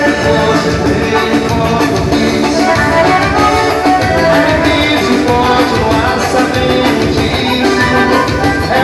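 Loud live band music playing continuously.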